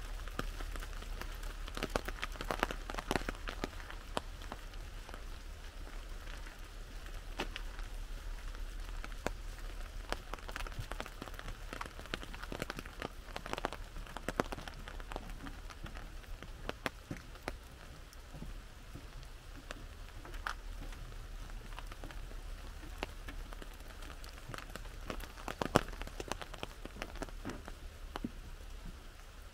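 Rain falling on an umbrella: scattered drops tap the canopy irregularly over a steady hiss of rain, with one sharper tap near the end.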